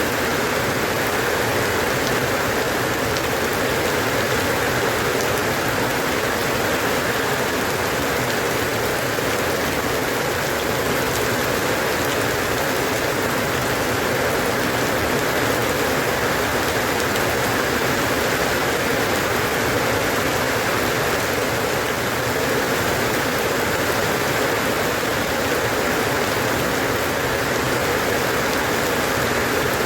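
Steady, even rainfall on a surface, a constant hiss with fine drop patter, unchanging in level throughout.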